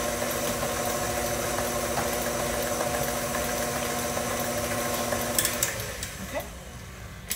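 Tilt-head electric stand mixer running steadily as it beats chocolate cake batter in its steel bowl, a motor hum with a light rattle. It is switched off with a click a little over five seconds in and winds down.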